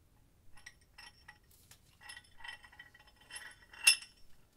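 Light metallic clinks and clicks from the screw and sliding T-handle of a restored cast-iron bench vise as the screw is fed into the movable jaw and turned. The sharpest clink comes near the end.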